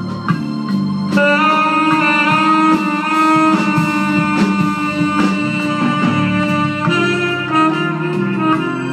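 Live jazz band playing: held melody notes over chords and a bass line, with cymbal ticks keeping a steady beat.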